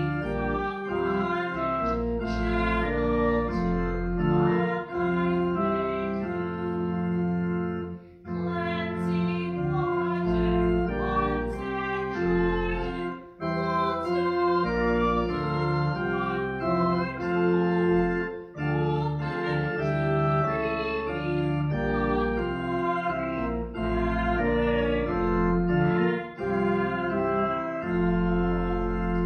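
Church organ playing a hymn in slow, held chords, with short breaks between phrases every few seconds.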